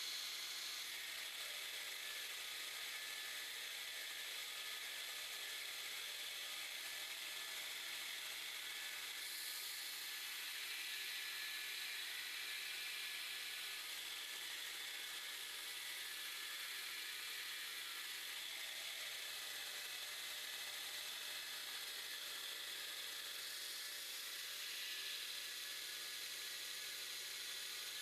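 Bench grinder running while a high-speed steel threading tool blank is ground on the wheel: a steady hiss with a low motor hum, shifting slightly in a couple of places.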